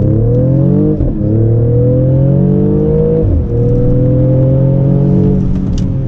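Mercedes-AMG GLE 53's turbocharged 3.0-litre inline-six under hard acceleration, its pitch climbing through the gears with two quick upshifts, about one and three seconds in, each dropping the pitch before it climbs again. Near the end the rise levels off and the pitch begins to fall as the throttle eases.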